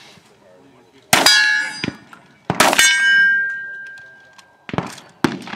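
Steel targets ringing as they are hit by gunfire: two sharp hits about a second and a half apart, each leaving a bell-like ring that fades over a second or more, then a few fainter cracks near the end.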